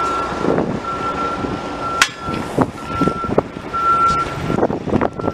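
A vehicle's reversing alarm beeping one steady high tone in long beeps, about one a second. A sharp knock sounds about two seconds in, and scattered clatter follows near the end.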